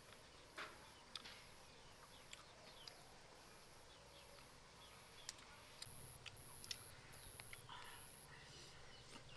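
Faint, steady series of very high-pitched insect chirps, a little under two a second, growing a little stronger and then stopping near the end, with scattered faint clicks.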